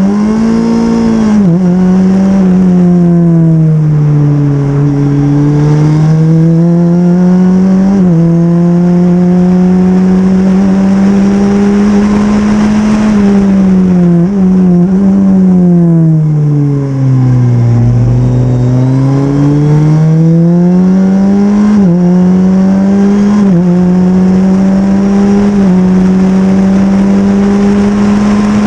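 Super FJ single-seater race car's engine running hard at speed, its revs climbing and falling. There are sudden pitch drops at gear changes, three quick upshifts near the end, and one long slowdown to low revs about two-thirds of the way in before it accelerates again.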